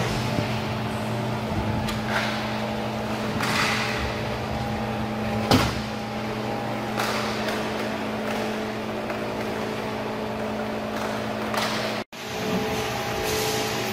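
Inline roller hockey game heard through the rink's plexiglass: a steady hum under scattered clacks of sticks and puck, with one sharp knock about five and a half seconds in. The sound cuts out for a moment near the end.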